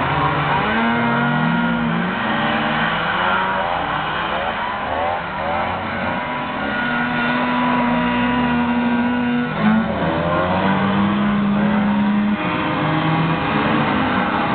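Several racing snowmobiles' engines revving and passing at once, each pitch rising and falling as they accelerate and back off around the track. A brief thump about ten seconds in.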